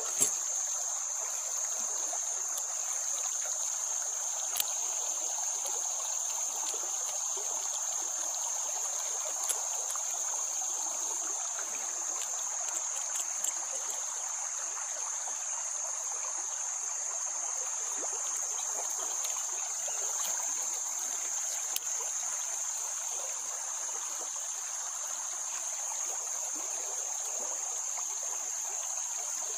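Steady high-pitched drone of insects, over a constant wash of running stream water, with a few faint isolated clicks.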